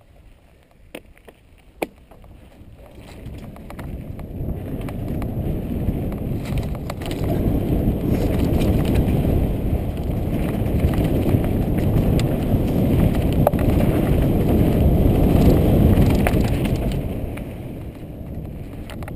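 Mountain bike rolling fast down a dry dirt singletrack: a low rumble of tyres on dirt and wind buffeting the microphone, building as the bike gathers speed and easing near the end. There are two sharp clicks in the first two seconds.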